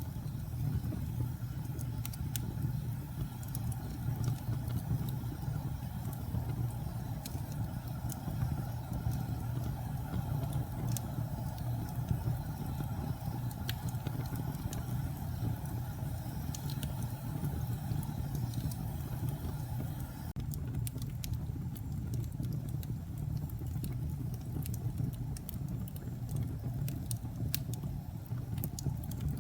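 Wood fire burning in a fireplace: a steady low roar of flames with scattered small crackles and pops, which come a little more often near the end.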